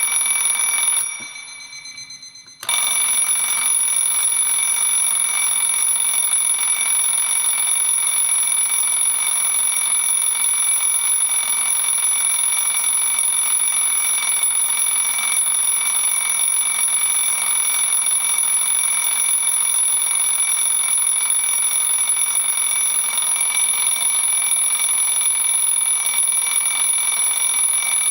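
Twin-bell alarm clock ringing loudly and continuously. About a second in, the ringing breaks off and dies away for a moment, then starts again abruptly and rings on steadily.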